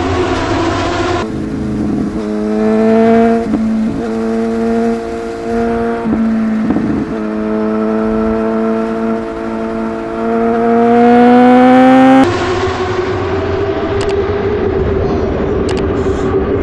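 Inline-four superbike engine running hard at high revs under way, its pitch mostly steady with a few brief breaks, then climbing before the sound changes abruptly about twelve seconds in to rougher engine and wind noise.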